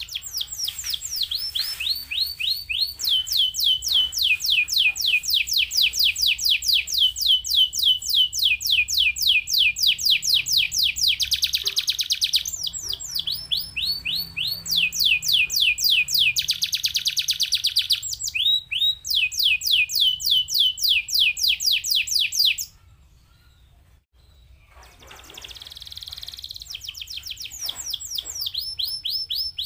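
Canary singing a fast song: long runs of rapid, repeated downward-sweeping notes with a few held buzzy tones. The song breaks off about 23 seconds in and picks up again a second or so later.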